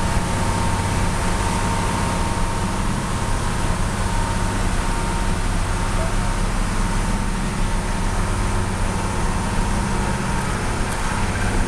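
Steady rumble of a vehicle engine with road noise while driving along, with an even hiss over it and a faint steady whine.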